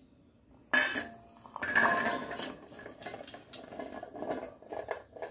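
Small amla (Indian gooseberries) poured from a stainless steel bowl into a perforated steel strainer, rattling and clattering against the metal. The bowl's rim clanks and rings suddenly about 0.7 s in, the clatter is loudest around 2 s, and a lighter rattle runs on until near the end.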